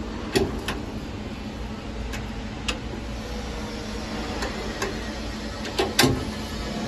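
Sharp clicks and knocks from a hinged boat hatch lid and its latch being opened and handled, the loudest knock about six seconds in, over a steady low hum.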